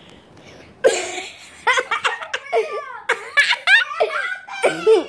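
Children laughing and giggling hard in rapid, high-pitched bursts, starting about a second in.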